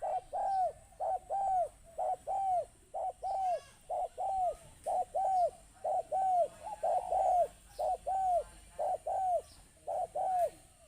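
Spotted dove cooing: pairs of notes, a short coo followed by a longer one, repeated over and over at a little more than one pair a second.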